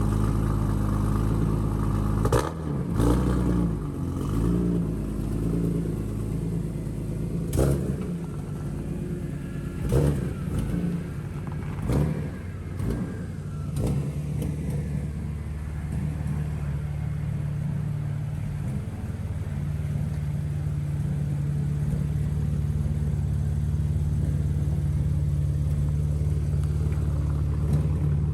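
BMW E92 engine running just after its inlets were refitted. Its note wavers in the first several seconds, then settles to a steady idle. A few sharp knocks sound over it in the first half.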